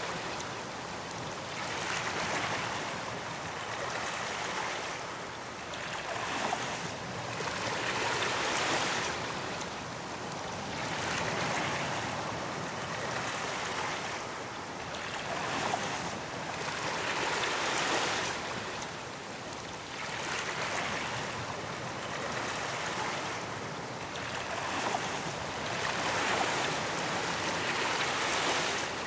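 Ocean waves breaking and washing on a beach, the surf swelling and easing in slow repeated surges a few seconds apart.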